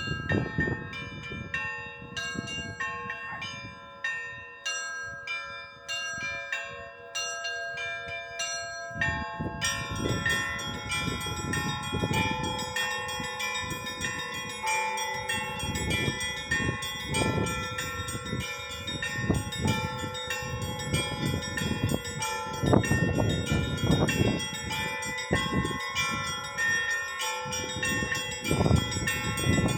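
A set of church bells rung together in a steady rhythmic pattern, several bells of different pitches struck over and over so their tones overlap and hang on. About ten seconds in, more and higher bells join and the ringing becomes denser and fuller.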